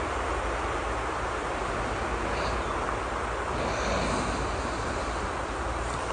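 Steady rain hiss.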